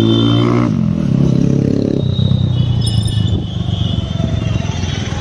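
TVS Apache RTR 160's single-cylinder engine running through an aftermarket exhaust, held at raised revs with a brief dip under a second in, then dropping to a rough, uneven idle about two seconds in.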